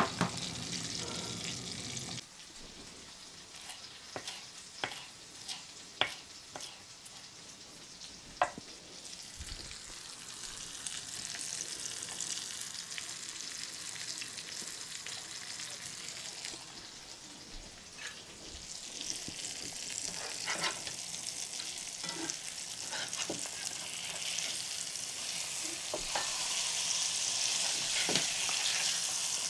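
Food sizzling in hot oil in a frying pan, with scattered sharp clicks of a utensil against the pan. The sizzle grows louder in the last third.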